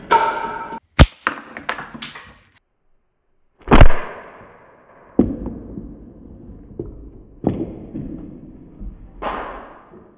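Slingshot shots striking targets on a workbench: plastic cups clatter as they fall in the first second, then a sharp hit and a few small clicks, and after a short gap a series of hard thuds about one to two seconds apart, the loudest about four seconds in, each trailing off in a rattle.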